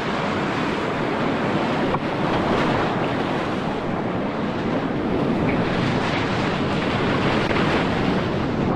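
Steady rush of whitewater at a 15-foot river waterfall, a dense even wash of water noise that holds level.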